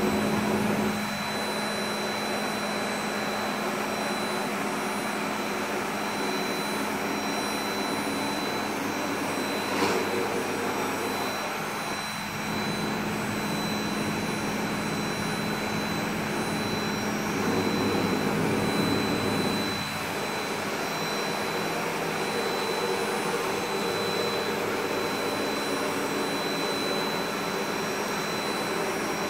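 Industrial robot arm's high-speed milling spindle running with a steady high whine as its cutter carves white polystyrene foam, over a steady low hum. There is a short click about ten seconds in, and the sound swells briefly a little before twenty seconds in.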